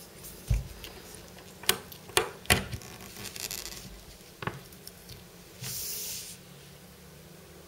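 Plastic spring pop-up toys being handled and set down on a table: a dull knock about half a second in, then sharp plastic clicks around two seconds in and one more about halfway through. Near the end comes a short hiss lasting about half a second.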